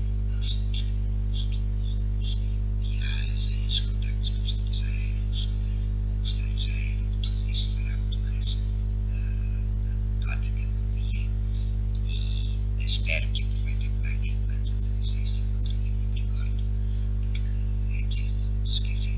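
Steady electrical hum, low and unchanging throughout, with scattered short, faint high-pitched sounds coming and going on top of it.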